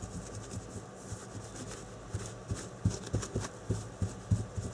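Paper towel wetted with denatured alcohol being scrubbed over the soldered tops of battery cells, wiping off flux residue: irregular soft scratching rubs with small knocks, the strongest about three and four seconds in.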